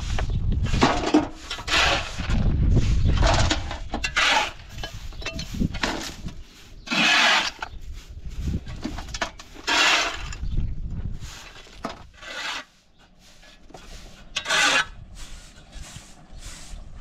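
Rasping strokes of a hand tool working material, each about half a second and coming irregularly a couple of seconds apart, about eight in all, over a low rumble in the first few seconds.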